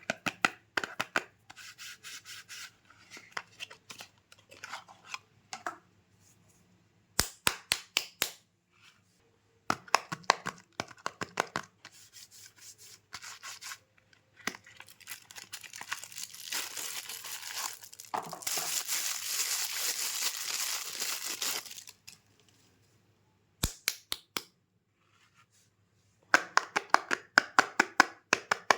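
Soap packaging being unwrapped by hand: quick clusters of crisp crinkling and crackling, broken by short silences, with a longer continuous tearing rustle in the middle.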